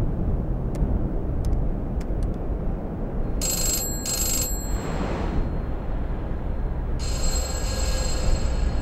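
An old desk telephone's bell ringing: two short rings about three and a half seconds in, then a longer ring near the end, over a steady low rumble.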